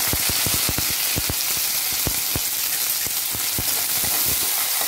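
Fresh curry leaves sizzling and spluttering in hot oil with garlic, mustard seeds and urad dal in a kadai: a loud, steady sizzle shot through with many sharp crackling pops, the tempering (tadka) for a South Indian potato fry.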